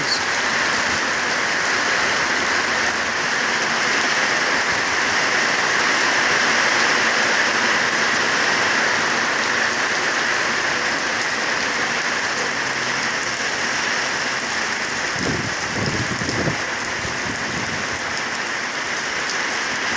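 Heavy rain falling steadily onto a wet paved street, an even hiss of drops striking the surface.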